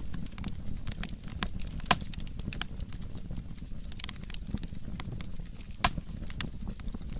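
Burning firewood crackling and popping: a steady run of sharp snaps over a low rumble, with two louder pops, about two seconds in and just before six seconds.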